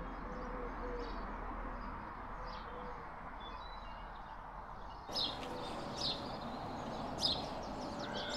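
Outdoor ambience of birds chirping and calling over steady background noise. About five seconds in, the chirps become sharper and louder.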